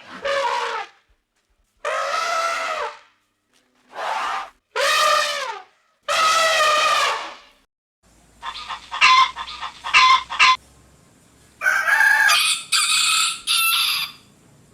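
A domestic cat meows five times. Then chicken sounds follow: a run of short clucks, and near the end a rooster's crow in three linked parts.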